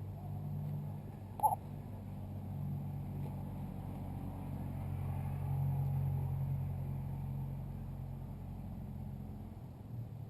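A vehicle engine running steadily with a low hum, growing louder towards the middle and dropping away near the end, with one short sharp sound about a second and a half in.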